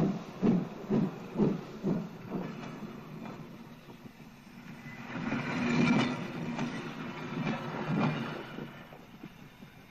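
Steam locomotive chuffing in even puffs about two a second, fading away over the first few seconds. From about five seconds in, the train's rushing noise swells again with a few heavy beats as its wagons roll past.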